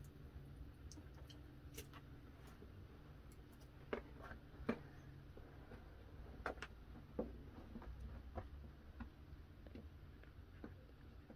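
Faint scattered taps and clicks, a few louder ones about four and six and a half seconds in, over a low steady rumble: small handling noises of a person at work with a plastic basin.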